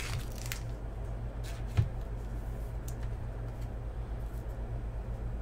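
A steady low hum under a few light taps and clicks of trading cards being handled and set down on a tabletop. The sharpest tap comes about two seconds in.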